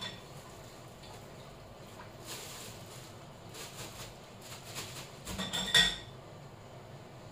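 Kitchen clatter of pots and dishes: a click, then scattered light taps and scrapes, and a quick run of knocks ending in a sharp ringing clink near the end, the loudest sound.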